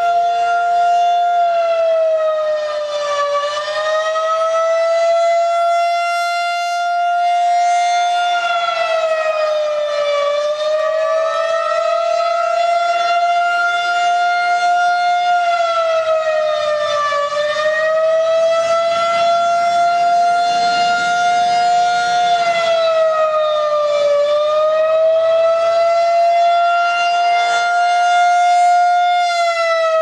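Federal Signal 2001-SRN rotating electromechanical outdoor warning siren sounding a steady tone. The pitch dips slightly and recovers about every seven seconds as the horn turns.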